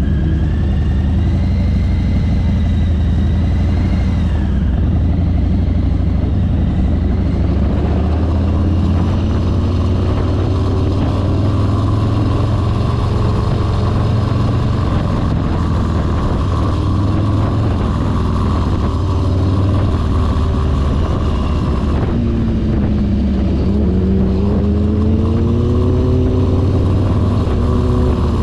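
Motorcycle engine running under way with a steady low rumble and road and wind noise. Near the end its pitch dips as it slows, then climbs again as it accelerates.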